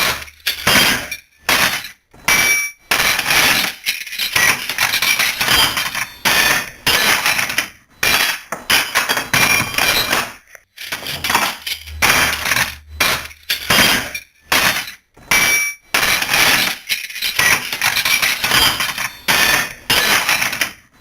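Metal wrenches thrown one batch after another into a toolbox. Each throw is a jangling clatter of metal striking metal with short ringing tones, and brief pauses fall between the throws.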